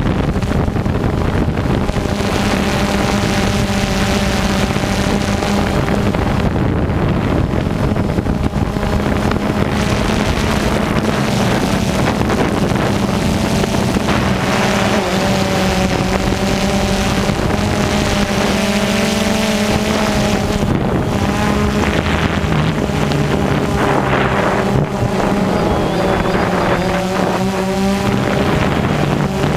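Quadcopter drone's electric motors and propellers buzzing steadily, heard from its on-board camera, with several pitches that drift up and down together as it manoeuvres. Wind rushes over the microphone underneath.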